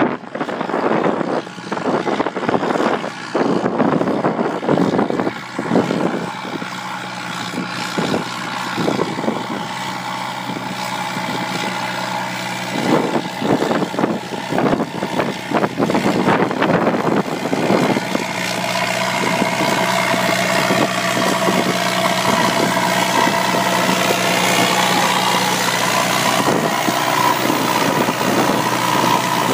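Tractor engine running steadily, with irregular knocks and rattles through the first half; from about eighteen seconds in it settles into a steadier drone with a higher tone added.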